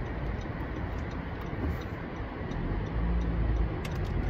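Turn-signal ticking inside the cabin of a Honda Civic Si, over the low hum of its engine, which grows louder about three seconds in as the car pulls away.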